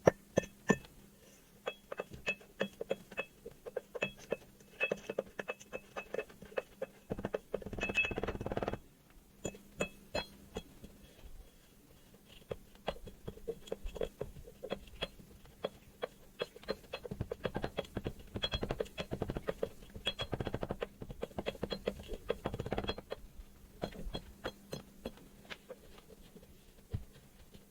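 Kinetic sand being handled: a run of soft taps and clicks, with longer stretches of grainy scraping about seven seconds in and again from about seventeen to twenty-three seconds.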